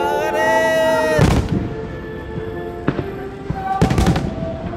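Aerial firework shells bursting, two loud booms about a second in and near the end, over music with singing.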